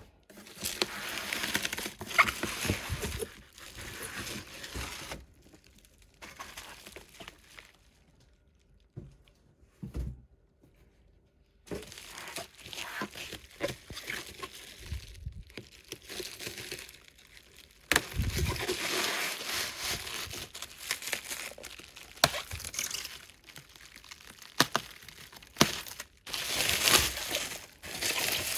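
Plastic packaging crinkling and rustling as a boxed figure is unpacked by hand, in irregular bursts with small clicks and knocks. A quieter pause in the middle holds a single knock, then the handling picks up again.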